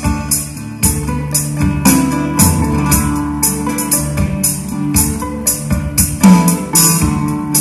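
A live band plays: double bass, acoustic guitar, drum kit and keyboard, with a steady high percussion stroke about twice a second over sustained notes.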